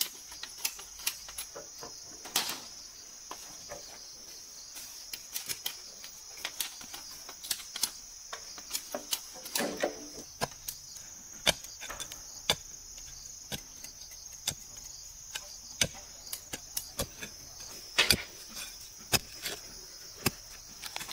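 Steady high-pitched chirring of insects, with scattered knocks and clicks of long bamboo poles being handled and, near the end, of earth being dug out of a hole.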